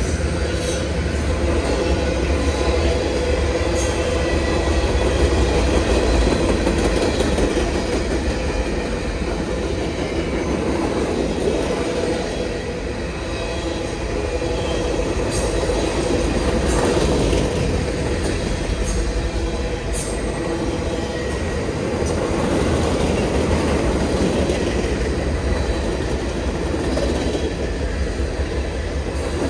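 Covered hopper cars and tank cars of a mixed freight train rolling past: a steady rumble of steel wheels on rail, with faint wheel squeal and occasional clicks.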